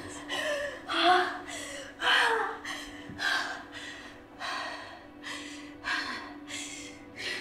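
A woman gasping for breath in quick, ragged gasps, about two a second, some with a slight voiced catch: hyperventilating in a panic attack.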